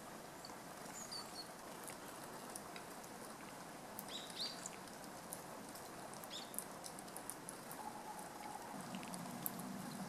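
Faint, scattered sharp taps and clicks of a Japanese tit pecking at sunflower seeds on a wooden feeder tray. A few short, high chirps from small birds come about a second in and again near the middle.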